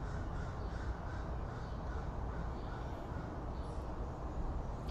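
Crows cawing faintly several times over a steady low outdoor rumble.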